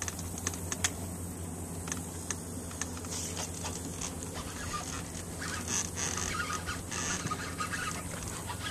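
Birds chirping faintly over a steady low hum, with a few light clicks; the chirps come in from about five seconds in.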